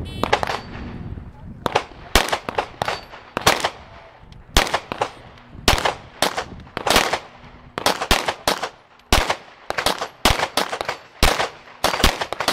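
Glock pistol fired in a fast string at steel plates: about twenty sharp shots, coming in quick pairs and triples roughly two a second.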